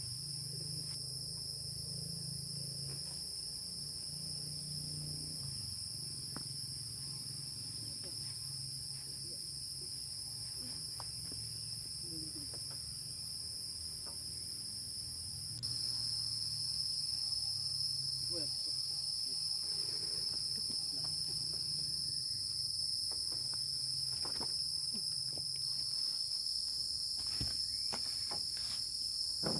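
Steady insect chorus: an even, unbroken high trill that gets louder about halfway through. A few light knocks or ticks come near the end.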